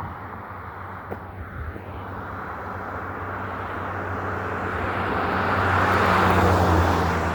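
A passing road car, its tyre and engine noise swelling slowly over several seconds to a peak near the end, then starting to fade.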